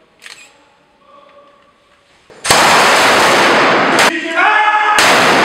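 Gunfire bursts, very loud and dense, starting suddenly about two and a half seconds in after a quiet start. There is a brief break near the end, with shouting in it.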